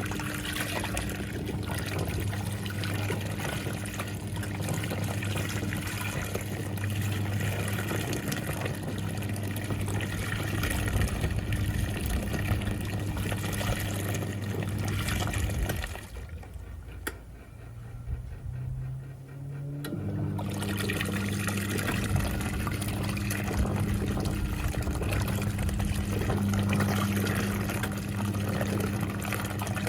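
National NA9450PN compact pulsator washing machine agitating its load: water swishing and churning over a steady motor hum. The motor stops for about four seconds around the middle, then starts again.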